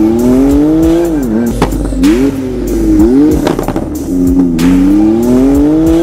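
Porsche 991.2 Turbo S twin-turbo flat-six through an Armytrix valved exhaust, accelerating hard. The engine note climbs and drops sharply at each upshift, about three times, with a short blip in between.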